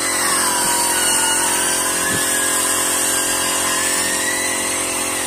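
A power tool running steadily, with a whine that slowly dips and rises in pitch over a constant hum and hiss.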